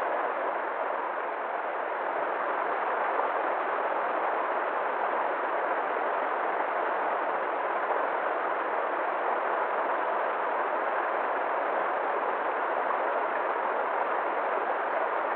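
River water rushing steadily, an even wash of noise with no breaks or changes.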